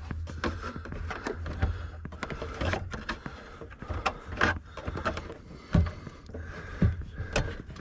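Irregular clicks, knocks and rattles of a factory AM radio being worked loose from the dash of a 1975 Plymouth Duster, over a low steady hum.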